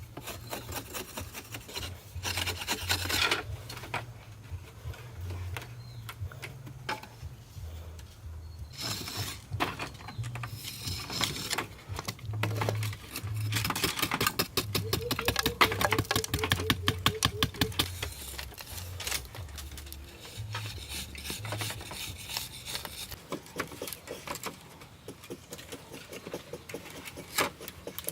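Hand-tool scraping and rubbing, a run of quick rasping strokes with clicks, most rapid and loudest around the middle.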